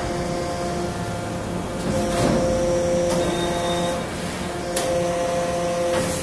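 Salt block press running with a steady machine hum whose tones drop out and return as it works. Short noisy surges come about two seconds in and again near five seconds.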